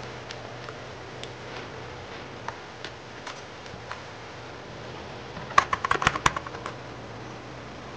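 Plastic keycaps clicking as they are fitted onto a mechanical keyboard's switches: scattered light clicks, then a quick run of about ten sharper clacks about five and a half seconds in.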